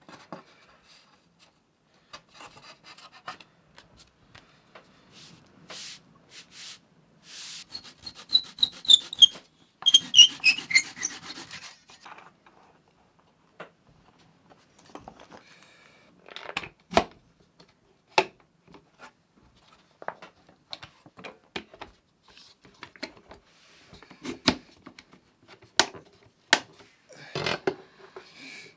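Hand work on wood: scattered rubbing and scraping, with sharp clicks and knocks. A rapid run of clicking with falling pitched sweeps comes about eight to eleven seconds in.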